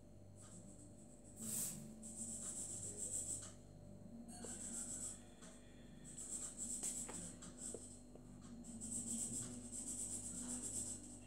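Black felt-tip marker scratching across paper as it colours in a solid area. The strokes come in several spells of a second or two each, with short pauses between them.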